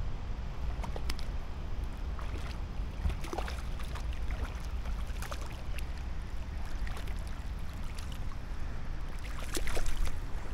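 Low wind rumble on the microphone over a shallow creek's flowing water, with scattered light clicks and knocks. The loudest comes about nine and a half seconds in.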